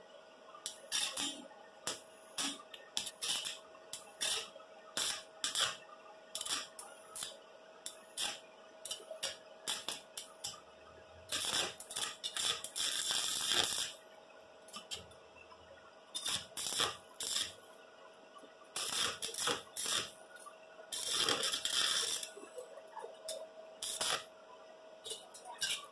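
Stick (arc) welding on a thin perforated steel drum from a washing machine's spin basket: many short crackles as the arc catches and breaks, with two longer stretches of steady arc crackle, about two and a half seconds a little before the middle and about a second and a half near the end.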